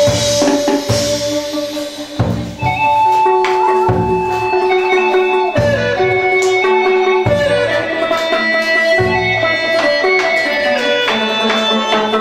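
Chầu văn ritual music: a plucked moon lute (đàn nguyệt) playing held and running notes over repeated drum strokes.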